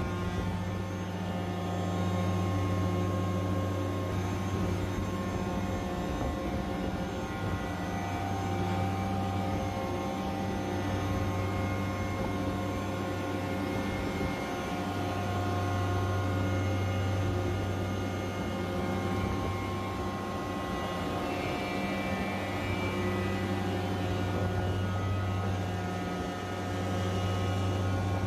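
York screw chiller with a variable speed drive running: a steady deep hum with many fine, steady whining tones above it. The deep hum eases and swells a few times.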